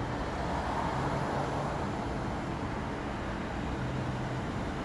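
Steady city traffic noise, an even rumble and hiss with a faint low hum and no distinct events.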